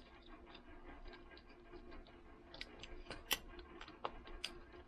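Faint small metallic clicks and taps of a replacement blade being worked into an aluminum utility knife, with two sharper clicks in the second half. The slightly bent blade is not seating.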